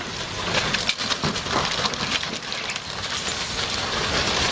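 A semi-trailer truck and the tow truck hitched to it crashing and tumbling down a snowy slope, an irregular rumbling, crackling noise with many short knocks.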